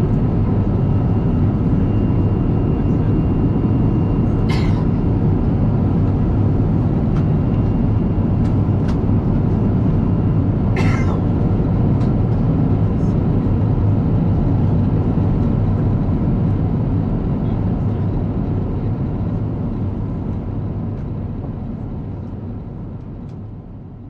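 Steady roar inside the cabin of an Airbus A350-900 in flight, heard from a window seat beside the wing: the noise of its Rolls-Royce Trent XWB engine and the airflow, with faint steady whines on top. Two short clicks come about 4.5 and 11 seconds in, and the roar fades out gradually over the last eight seconds.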